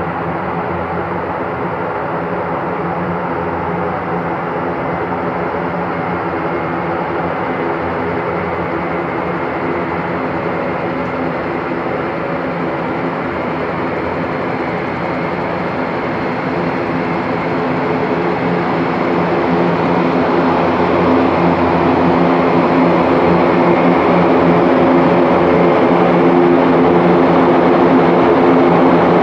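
Royal Air Force Airbus A400M's four turboprop engines running at low power as it taxis: a steady propeller drone with several held tones, growing louder over the second half.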